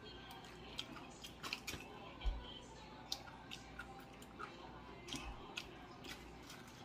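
Close-up chewing of a boneless chicken wing, with scattered small wet clicks and mouth noises.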